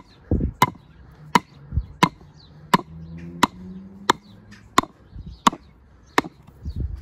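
Steel club hammer striking the end grain of a round wooden log post in steady, evenly spaced sharp knocks, about ten in all at roughly one every 0.7 seconds. The blows are driving a new log into an old hole to sit level with the rest of a log retaining edge.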